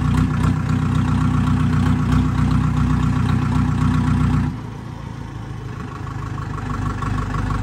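Diesel tractor engine running steadily while driving, then dropping suddenly to a lower, quieter speed about four and a half seconds in as it slows, creeping up a little near the end.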